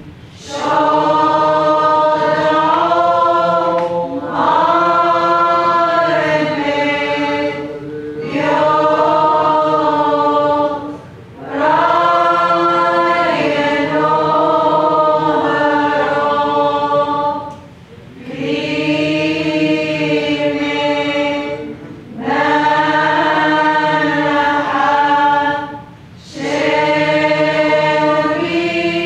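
Syriac Orthodox church choir singing a hymn in phrases a few seconds long, with a short break between phrases.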